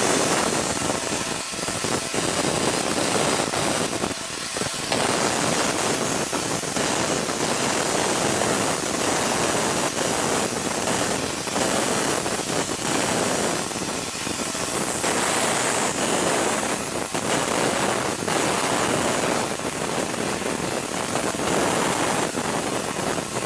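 Large Tesla coil discharging continuously: a loud, harsh crackling buzz of high-voltage arcs streaming from the coil's top to a sprayed jet of lithium chloride solution.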